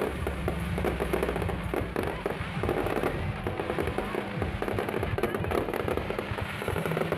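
Aerial fireworks display going off in a dense, continuous barrage of rapid bangs and crackles, with music playing underneath.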